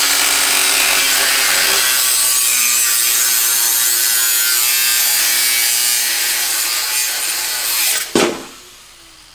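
Power tool cutting metal: a steady, loud, harsh noise with a motor whine under it, stopping suddenly about eight seconds in with a sharp knock.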